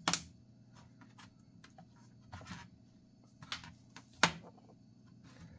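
Thin pry tool being worked into the seam of a laptop's plastic case: scattered clicks and short scrapes, with two sharp louder clicks, one just at the start and one about four seconds in.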